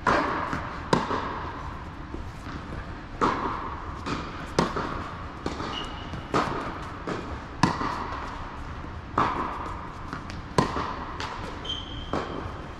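Tennis rally: the ball struck by rackets and bouncing on an indoor hard court, sharp knocks about every second and a half, echoing in the large hall.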